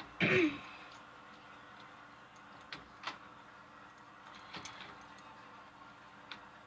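A brief vocal sound at the start, then a few faint, sparse clicks and ticks of door keys being handled.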